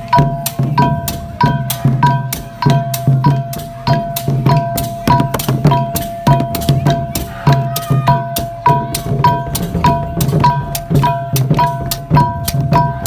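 Khmer chhay-yam percussion ensemble playing: long hand drums beaten with the palms, together with wooden clappers and small hand cymbals, in a steady, quick rhythm. A ringing metallic tone sounds over the strikes.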